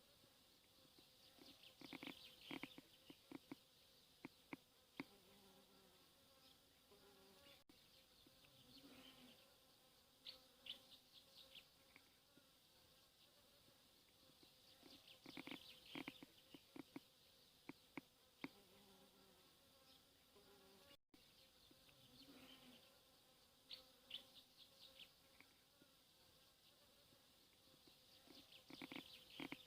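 Faint open-air ambience: small birds chirping in scattered bursts of short, quick notes, over a low steady buzzing of insects.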